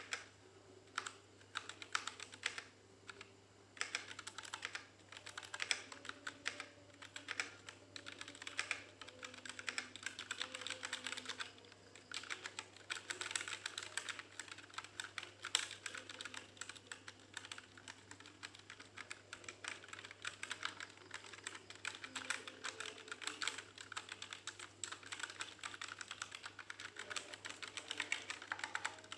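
Typing on a Dareu EK871 mechanical keyboard with brown switches: a fast, irregular run of key clacks with a few short pauses.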